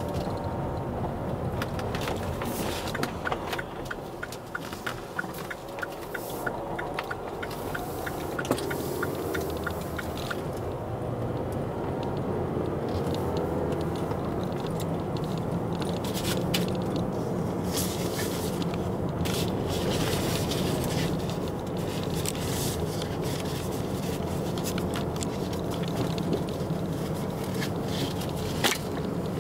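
Car driving, heard from inside the cabin: for the first several seconds tyres crunch over a gravel road with stones clicking and ticking. After about ten seconds this gives way to a steadier hum of engine and tyres on asphalt.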